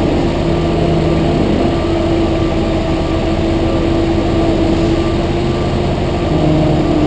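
Concrete mixer truck's diesel engine running steadily at a constant speed, with a steady hum, while it discharges concrete down its chute.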